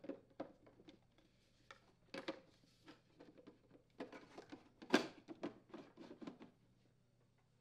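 Faint handling noise of a replacement elbow blower tube being worked into an Echo PB580T leaf blower's housing: scattered light clicks, knocks and rubbing, with the sharpest knock about five seconds in.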